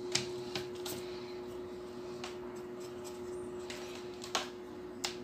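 Drafting tools (pencil, compass, ruler) tapping and clicking on paper on a desk while layout marks are drawn: about six short, sharp clicks, irregularly spaced, over a steady low hum.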